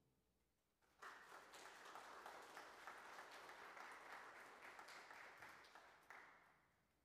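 Congregation applauding, starting about a second in and lasting about five seconds before dying away near the end.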